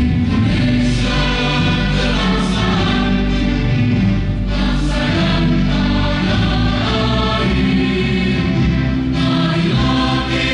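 Music: a choir singing with instrumental accompaniment, steady low notes underneath.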